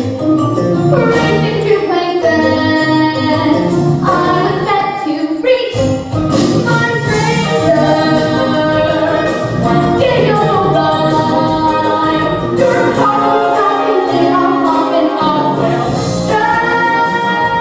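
Teenage girl singing a Broadway show tune solo over an instrumental accompaniment track, ending on a long held note.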